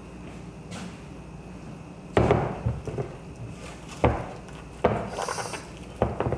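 Several sharp knocks a second or two apart, of a ceramic bowl and a spoon being handled on a kitchen counter, with a brief scrape near the end.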